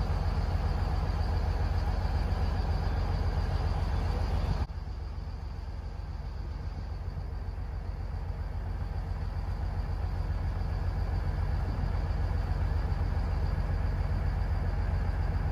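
Steady low rumble heard aboard a moving small boat, from its motor and the rush of passage. It drops suddenly a little under five seconds in, then slowly builds back up.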